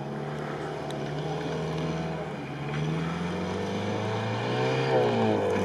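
Toyota Land Cruiser 70's engine labouring through deep sand, revving higher from about halfway through and dropping back near the end.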